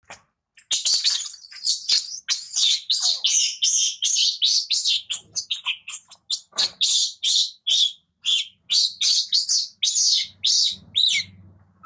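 Infant long-tailed macaque screaming in distress, a rapid series of shrill, high-pitched cries about two to three a second: the cries of a baby being weaned by its mother.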